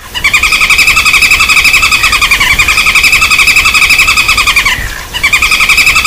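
Common flameback woodpecker's rapid rattling call: a loud, fast trill of sharp repeated notes that breaks off briefly about five seconds in and then starts again.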